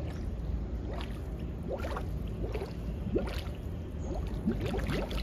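A swimmer exhaling underwater, bubbles gurgling up in several short, broken bursts with water sloshing. This is the stop-start exhale that a learner should avoid in bubble breathing, heard over a steady low rumble.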